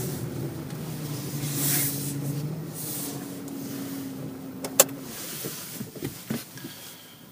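Steady mechanical hum inside a car, shifting in pitch about three seconds in and ending with a sharp click just before five seconds; after that only a few light ticks.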